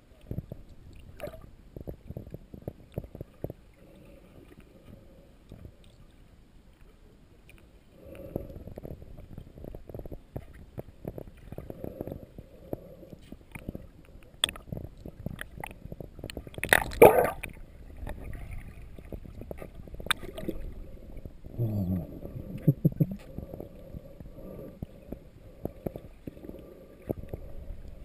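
Muffled underwater sound picked up by a camera in a waterproof housing: low water noise full of small crackles and clicks, quieter for the first several seconds. A single louder burst comes about two-thirds of the way in.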